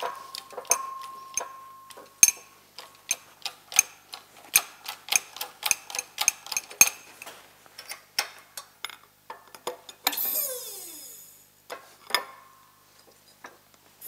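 Hand-pumped hydraulic shop press with a bottle jack being worked, pressing a new bearing onto a snowmobile bogie wheel arm: a quick run of clicks and clanks, about three a second, with a metallic ring at the start. About ten seconds in there is a short hiss sliding down in pitch, then a single clank.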